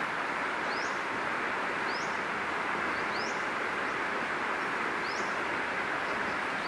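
Steady, even hiss-like outdoor background noise, with a bird giving a short rising chirp four times, a second or two apart.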